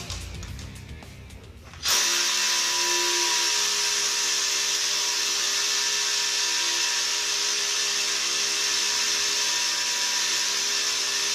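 A power drill starts suddenly about two seconds in and runs steadily at one speed, drilling a hole for a drop-in concrete anchor. Background music fades out before it starts.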